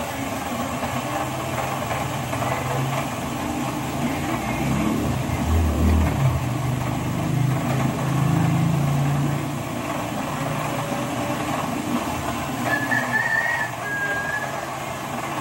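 An engine running steadily, with a low hum that wavers and grows louder for a few seconds in the middle.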